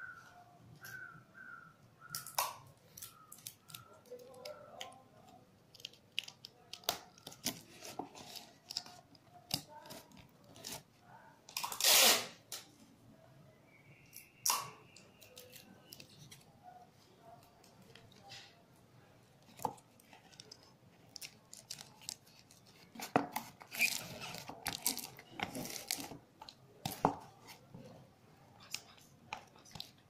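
Scattered handling noises of papercraft work: light taps, clicks and rustles of cardboard and paper, with one louder rustle about twelve seconds in and a busier run of clicks and rustles a little past the twenty-second mark.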